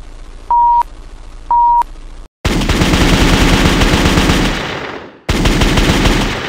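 Two short electronic beeps a second apart, then rapid automatic gunfire: a long burst of about two and a half seconds, a brief pause, and a second burst that fades out.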